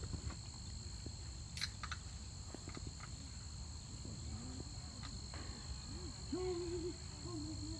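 Steady high chirring of crickets or other insects in the grass, over a low rumble. A brief click comes about a second and a half in, and a faint wavering tone near the end.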